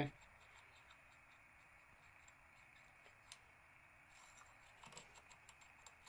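Faint small metallic clicks from a rotor lock pick being worked in a Mul-T-Lock pin-tumbler cylinder with the tension eased: one sharper click about three seconds in, then a scatter of light clicks near the end.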